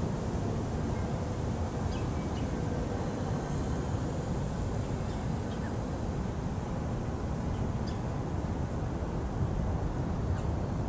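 Steady low outdoor rumble with no clear pattern, with a few faint short high ticks scattered through it.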